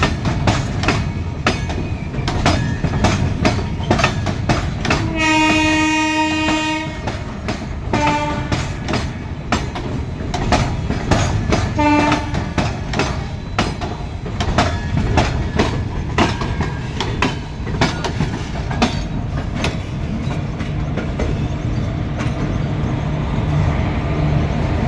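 Goods train wagons' wheels clattering rapidly and steadily over the rail joints (clickety-clack). A locomotive horn sounds one long blast about five seconds in, then two short toots a few seconds apart.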